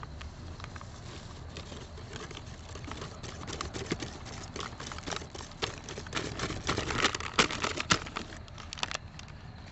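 Dry castable refractory mix poured from a plastic bag into a metal can: grains pattering on the metal, with the bag crackling. A dense run of quick clicks grows heavier partway through the pour and thins out near the end.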